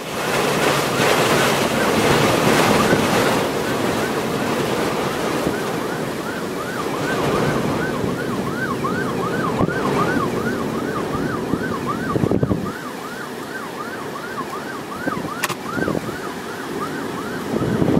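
Strong wind buffeting the microphone, with a siren starting about six seconds in, going up and down in pitch in a fast repeating yelp, two or three times a second, and fading near the end.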